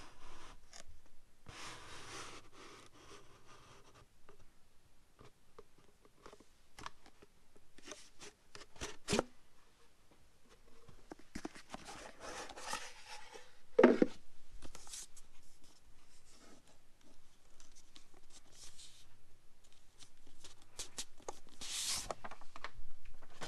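Hands handling cardboard and paper packaging: a cardboard box drawer sliding in its sleeve, with rustling, rubbing and scattered light clicks as a hard sunglasses case and its insert are taken out. There are a few louder knocks, the strongest about fourteen seconds in.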